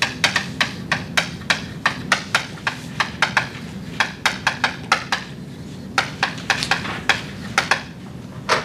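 Chalk writing on a blackboard: a fast run of sharp taps and short scratches as the letters are struck out, several a second, with a brief pause about five seconds in.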